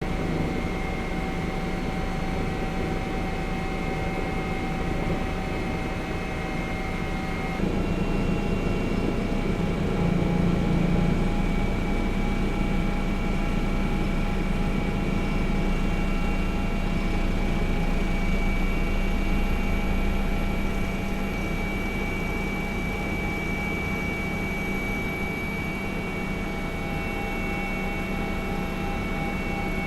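Aircraft engine running steadily: a loud drone with high whining tones, which shift abruptly about eight seconds in.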